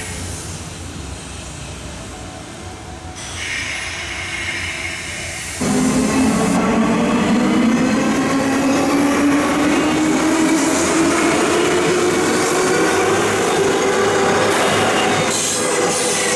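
JR West 201 series electric train on the rails: quieter running at first, then from about five seconds in a louder pass as it pulls away, its chopper-controlled traction motors giving a slowly rising whine as it accelerates over the rumble of wheels on track.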